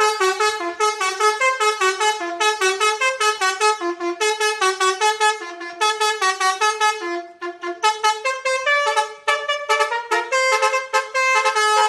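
Basuri telolet multi-tone horn playing a fast melody of short honked notes, several notes a second, with a brief lull about seven seconds in.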